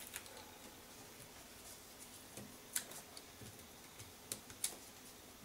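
A handful of faint, scattered clicks and taps from small paper-crafting handwork: foam dimensionals being picked off their backing sheet and pressed onto a card panel.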